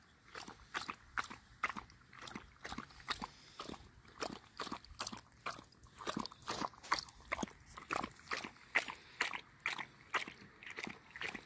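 Siberian husky lapping water from a collapsible bowl: a steady run of wet laps, about three a second.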